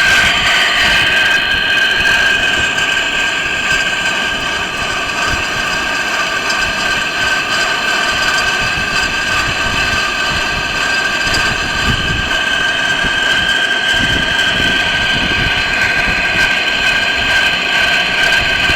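Metal lathe turning a steel rolling-mill shaft, running with a steady high-pitched whine.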